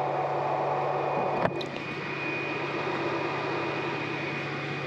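Tractor and grain-bag unloading machinery running steadily, a low engine hum with a thin high whine over it, and a single sharp knock about a second and a half in.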